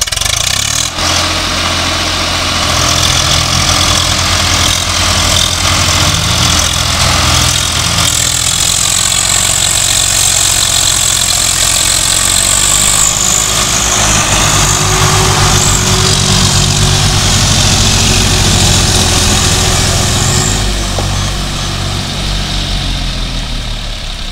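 Tractor diesel engines, a Swaraj 855 FE and a John Deere 5050D, running loudly under heavy load as the tractors work in deep mud. The engine note changes pitch several times.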